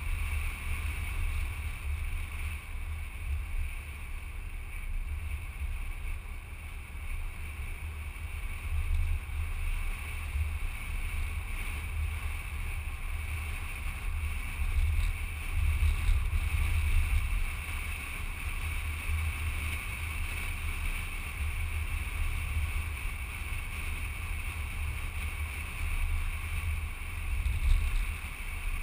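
Wind buffeting the microphone of a camera mounted on the outside of a moving car: an uneven low rumble that swells and eases, over steady driving noise.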